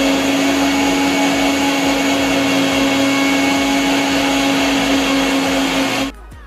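Electric mixer grinder running at full speed with a steel jar, grinding spice paste: a loud, steady motor whine with a strong steady hum. It stops abruptly near the end.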